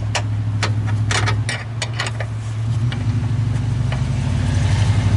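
Metal hand tools clinking and clicking against battery clamp hardware, several sharp clinks in the first two seconds and a few more later, over a steady low hum of an engine running, whose pitch shifts slightly about a second and a half and three seconds in and grows louder near the end.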